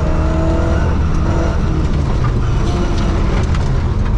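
Ford Escort Mexico rally car's engine running hard on a gravel stage, heard from inside the cabin, its pitch shifting in small steps. Beneath it runs a steady rush of tyres on loose gravel, with a few sharp ticks of stones striking the car.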